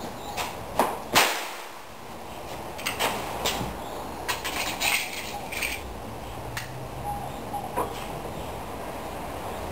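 Derringer Mendoza pistol firing a 4.5 mm pellet on a blank cartridge: one sharp shot about a second in, ringing out briefly. Lighter clicks and knocks come before and after it.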